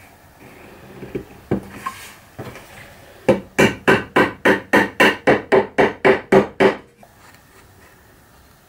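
Wooden mallet knocking a glued wooden spline into a saw kerf at the corner of a wooden frame: a few light taps, then about a dozen quick, sharp blows, roughly four a second, that stop abruptly.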